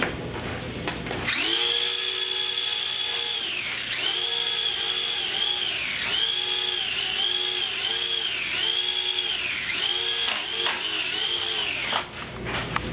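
Toy UFO giving off a high whine that holds steady, then dips down and back up in pitch again and again at uneven intervals, stopping suddenly near the end.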